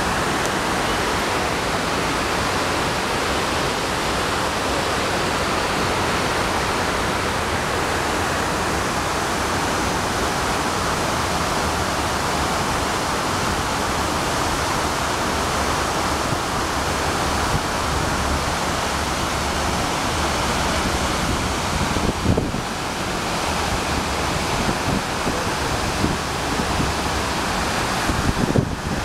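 Steady rushing of the 9/11 Memorial's North Pool waterfall, water pouring down the pool's walls into the reflecting pool below.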